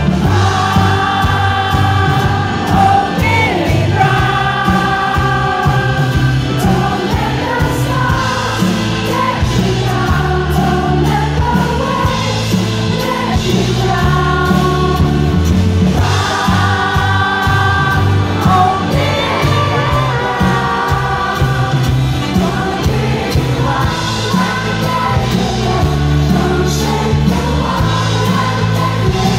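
Live pop band with grand piano, and voices singing long held notes, heard from the crowd through a concert PA.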